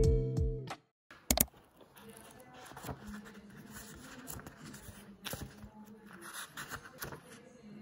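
Guitar background music fades out in the first second. After a sharp click just over a second in, the pages of a paperback book are flipped through by hand, with a soft, uneven papery rustle.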